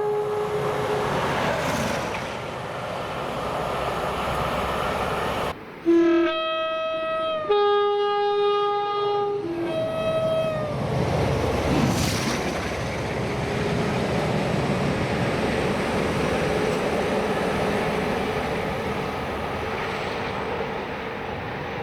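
Locomotive air horn sounding held chords: the end of one blast at the start, then about halfway through three blasts in a row, each a chord of several notes with the notes shifting between blasts. Between and after the horn blasts a train rumbles past, with wheels clacking on the rails.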